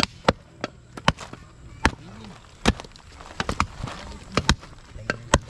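Golok machete chopping into a large cow bone: a series of sharp, irregular blows, roughly two a second, some coming in quick pairs.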